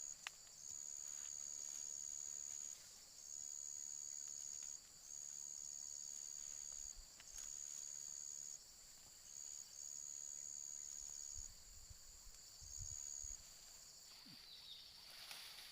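Insects trilling: a high, steady trill that comes in bursts of one to two seconds with short gaps, over a continuous slightly lower insect drone.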